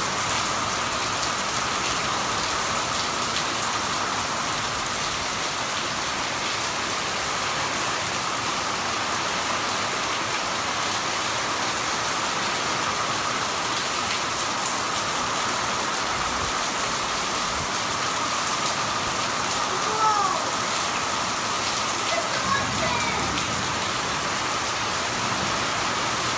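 Heavy rain falling steadily, a dense even hiss. Late on come a few short sounds sliding in pitch.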